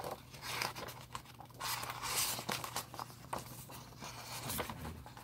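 Pages of a book handled and turned by hand: paper rustling with small taps and clicks, and one longer sweep of a page turning about two seconds in.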